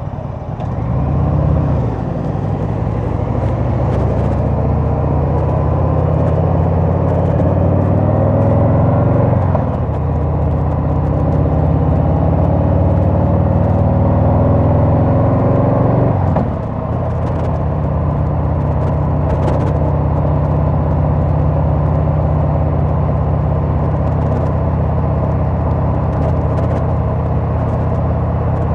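Harley-Davidson Sport Glide's V-twin engine under way. The revs climb, dip briefly about nine and a half seconds in, climb again, drop at about sixteen seconds, then hold steady at cruising speed.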